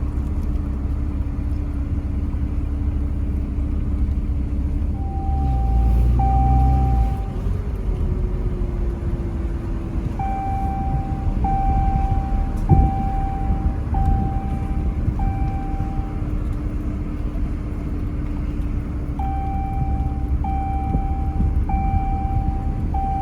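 Pickup truck driving, with steady engine and road rumble and a louder surge of rumble about five seconds in. Runs of short electronic chime beeps repeat about once a second, in three stretches: a vehicle warning chime.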